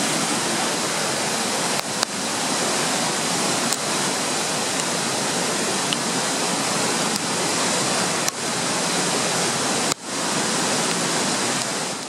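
Loud, steady rush of a whitewater river, broken four times by a short click and dip in level.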